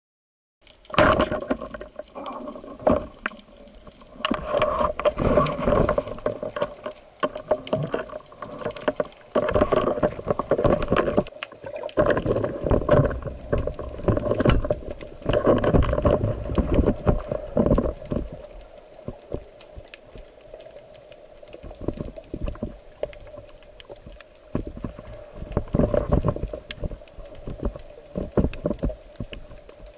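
Underwater sound during a spearfishing dive: water rushing and gurgling in uneven surges with scattered clicks, over a faint steady hum.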